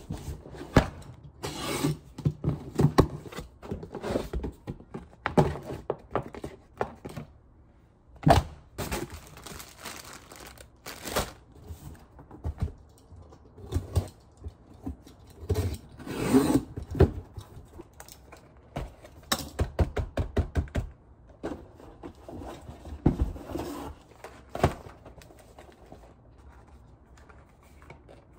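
Irregular knocks, taps and rustling of things being handled at close range, thinning out and quieting over the last few seconds.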